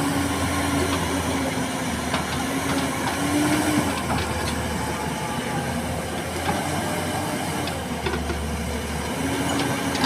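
JCB tracked excavator working: its diesel engine runs steadily under load with a hydraulic whine that comes and goes in stretches, while the bucket scrapes over gravel with scattered clicks of stones.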